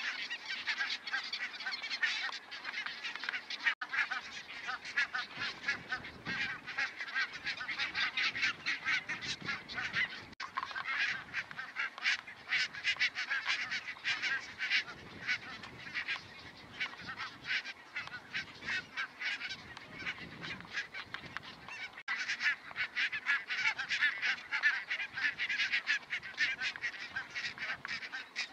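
A flock of barnacle geese calling continuously, many short honks overlapping into a steady chorus.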